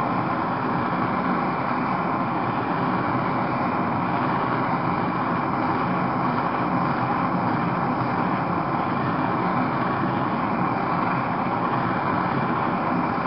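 MAPP gas blow torch with a TS-8000 head burning steadily at a high setting, its flame playing into a ceramic melting crucible, an even rushing noise that does not change.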